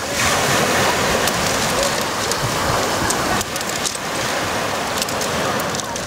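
Small sea waves breaking and washing over a pebble beach, with pebbles clicking in the wash. One surge swells at the start and drops away about three and a half seconds in, then the wash builds again.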